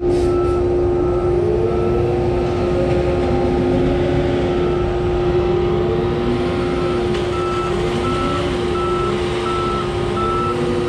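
Heavy diesel truck running while backing up, with its reversing alarm beeping about twice a second over the engine.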